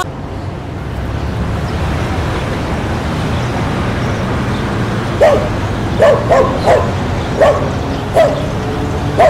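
A street dog giving short, sharp barks, about seven in quick succession, starting about halfway through, over a steady low background rumble.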